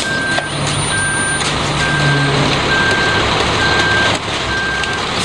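Front-discharge concrete mixer truck running as it pours concrete down its chute, a loud steady din. A reversing alarm beeps about once a second over it.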